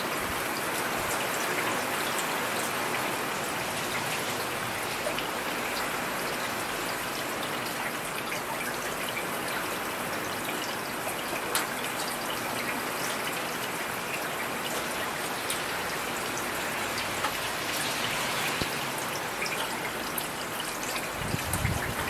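Heavy rain falling steadily: a dense, even hiss of rain with scattered ticks of individual drops.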